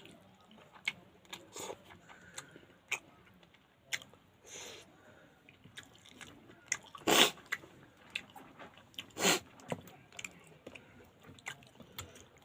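Close-miked eating of pangas fish curry: mouth clicks and smacks of chewing and biting, with two louder wet bursts of mouth noise about seven and nine seconds in.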